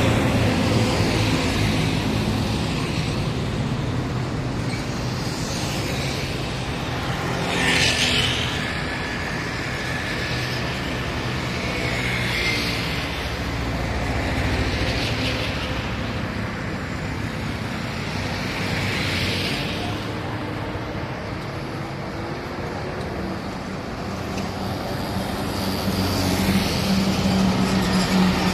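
Road traffic: a continuous rumble of engines and tyres, with vehicles passing every few seconds. Near the end a steady engine hum builds as an auto-rickshaw passes close.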